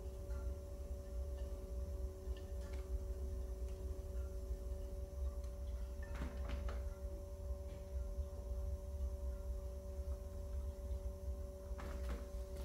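Electric pottery wheel running with a steady two-note motor hum over a low rumble, the hum stopping with a slight drop in pitch right at the end. A few light clicks from a trimming tool on the leather-hard pot about six seconds in and again near the end.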